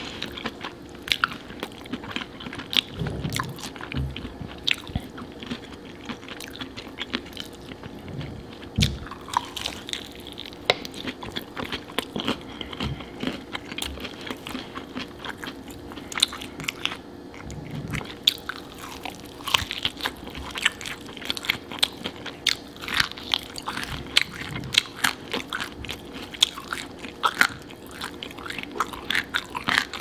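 Close-up eating sounds of sauce-coated fried chicken drumsticks: irregular biting, crunching of the fried coating and chewing, with many small crackles and smacks. A faint steady hum runs underneath.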